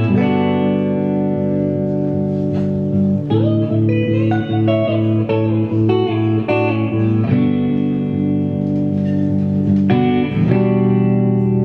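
Electric guitar playing a slow, sustained chord intro: ringing chords change a few times, with single picked notes moving over them in the middle stretch.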